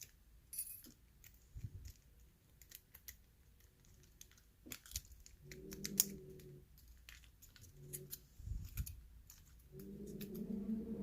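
Small metallic clicks and scratches of a thin lock shim being worked into a pin-tumbler challenge lock, with a few short low hums in between.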